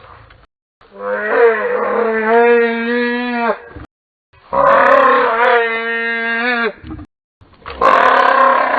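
Dinosaur roar sound effects: three long, drawn-out pitched calls, each about two and a half to three seconds long. Each holds a steady pitch and bends downward as it ends, with short silent gaps between them. The third call begins near the end.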